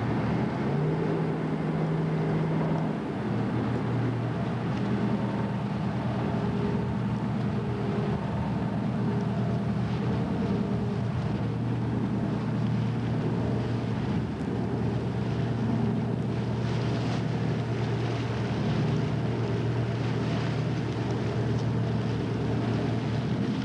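Twin V-16 Detroit Diesel two-stroke engines of a converted torpedo-retriever boat running with a steady low drone as the boat moves slowly under way. One tone in the drone steps up in pitch about a second in and drops out after a couple of seconds.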